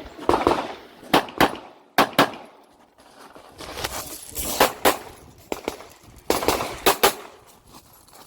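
Glock 26 9mm pistol firing strings of shots, mostly quick pairs, with short pauses between strings.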